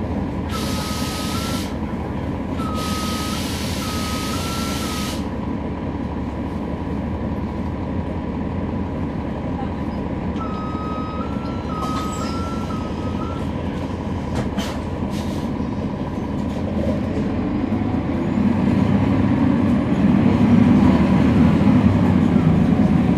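Interior of a NABI 40-foot transit bus heard from the rear seats: the steady rumble of its Cummins ISL9 diesel and ZF Ecolife automatic transmission. In the first few seconds there are two hisses of released air, with a stepped electronic beeping that comes back near the middle. From about three-quarters of the way in the rumble grows louder as the bus pulls away under power.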